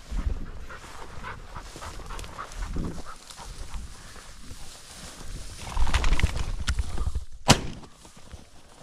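Footsteps through tall dry grass, with the stalks swishing against the walker and a low rumble on the microphone. There is one sharp click about seven and a half seconds in.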